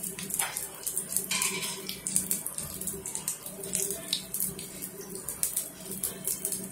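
Zucchini pancake batter sizzling in oil in a nonstick frying pan, with many small crackles and pops, over a steady low hum.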